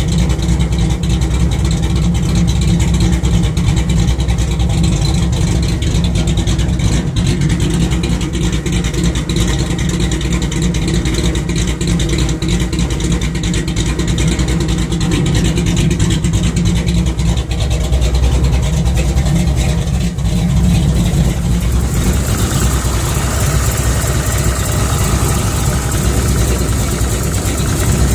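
A 388 cubic-inch small-block Chevrolet V8 with Holley Sniper EFI idling steadily at about 800 rpm, with the throttle closed. About 22 seconds in, the deep exhaust sound gives way to a thinner, higher sound from the engine bay.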